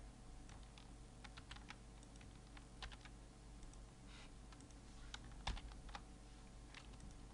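Faint computer keyboard keystrokes: scattered, irregular key clicks, one sharper click about five and a half seconds in, over a steady low hum.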